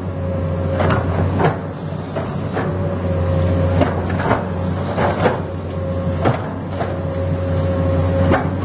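Komatsu excavator working: its diesel engine runs with a steady drone while a higher whine rises and falls away in stretches, and irregular knocks and clanks sound every half second to second.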